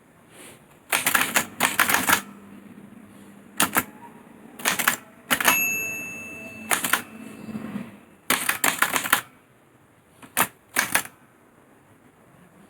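Olivetti Lettera 22 portable manual typewriter being typed on: sharp key and typebar clacks in short bursts with pauses between them. About halfway through, one strike is followed by a clear ringing tone that fades over about two seconds.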